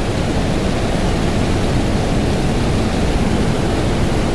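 Water pouring over a concrete mill dam into the river below, a steady rushing.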